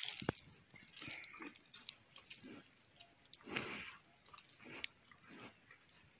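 Cattle at close range making soft, irregular crunching sounds, chewing, with small clicks and one fuller puff about midway.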